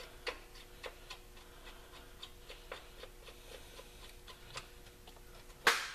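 Ratchet wrench clicking in short strokes, about two clicks a second, as the bolt of a newly fitted serpentine-belt tensioner pulley is run in, with one louder metal knock near the end.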